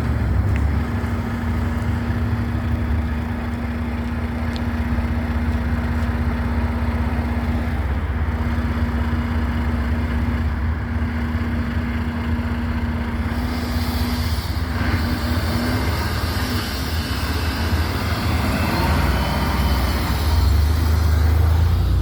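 Heavy road traffic: truck engines running steadily, with a steady drone for the first half. About 14 s in, the noise of a passing vehicle's tyres and wind builds up.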